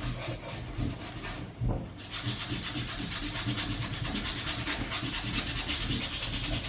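Suede brush scrubbed quickly back and forth over the worn suede rim of a steering wheel, a steady rhythmic rubbing that picks up about two seconds in; the brushing raises the flattened, shiny nap of the suede.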